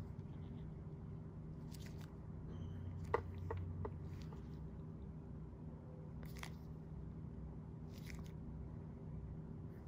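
Steady low electrical or fan-like hum of a small room, with a few faint clicks and crackles, a small cluster of them about three seconds in.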